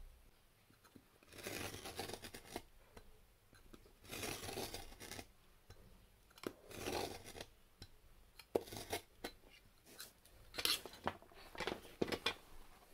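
Utility knife blade scoring through thick cardboard along a ruler in three drawn-out scraping strokes, followed by a run of sharp clicks and knocks as the cut board is handled.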